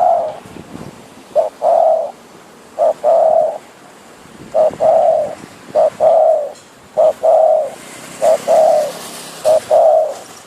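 A spotted dove kept as a decoy bird cooing. It gives a repeated phrase about eight times, roughly once every 1.2 seconds: a short note followed by a longer coo.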